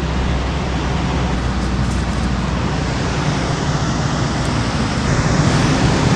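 Steady rush of water pouring through the dam below which the angler stands, an even roar with a deep rumble underneath.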